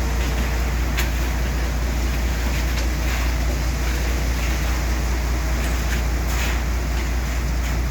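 Machinery engine running steadily at a concrete pour: an even low rumble with a few faint ticks over it.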